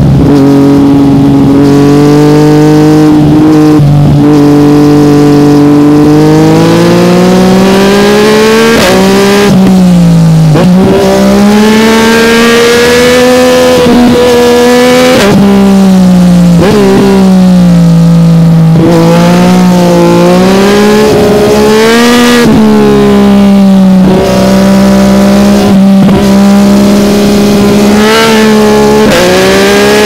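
Yamaha MT-09's inline three-cylinder engine, loud through an Akrapovic carbon exhaust, heard from on board while riding. The revs climb and fall again and again, with sudden drops in pitch as it shifts gear.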